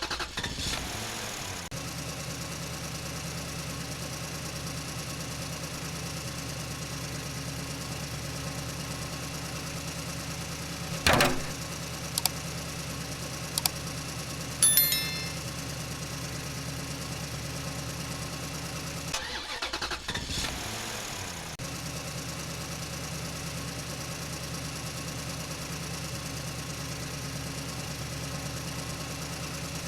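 A small engine running steadily at idle, with a few sharp clicks about halfway through and a brief break in its sound about two-thirds of the way in.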